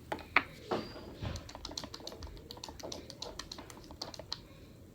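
Rapid, irregular light clicks and taps of a spatula and containers being handled while slime is mixed and coloured.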